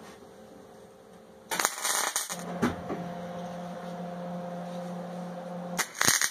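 A wire-feed welder humming steadily, with a short clatter about a second and a half in. Near the end the welding arc strikes with a loud crackle as a tack weld on the angle iron begins.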